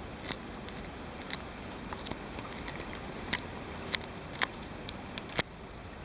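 About a dozen short, sharp clicks and ticks at irregular intervals over a steady background hiss, the loudest one near the end.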